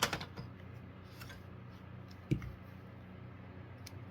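Handling noise: a few light clicks and one duller knock about two seconds in, over a steady low hum. The smoke alarm's horn is not sounding.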